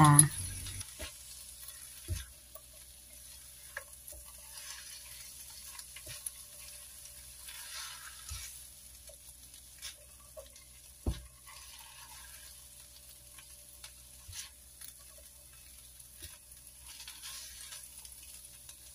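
Rice vermicelli and vegetables being stir-fried in a wok: a faint sizzle under the scrape and tap of a spatula stirring against the pan. There are a few sharper knocks, the loudest about eleven seconds in.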